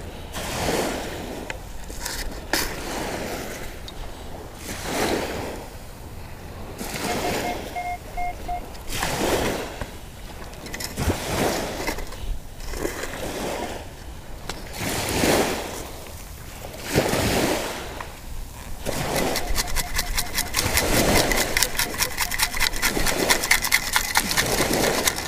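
A sand scoop digging and scraping into beach sand and gravel again and again, while a Minelab Equinox 600 metal detector gives a few short beeps at two points. Near the end comes a fast, continuous rattling as gravel is shaken through the scoop to sift out the target.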